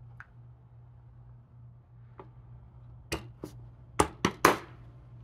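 Cast-aluminium Porsche 944 oil pump housing being handled, pressed down and turned over on a wooden workbench: a few faint clicks, then a quick cluster of sharper knocks about three to four and a half seconds in, over a low steady hum.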